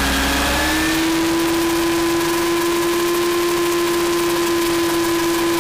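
Align T-REX 700 RC helicopter in flight, its motor and main rotor heard close up from a camera on the tail boom: a steady, loud whine whose pitch sags briefly at the start and climbs back within about a second.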